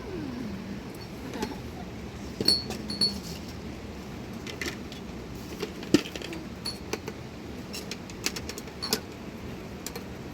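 Scattered light clicks and knocks of small hard objects being handled, with two short ringing clinks about two and a half and three seconds in.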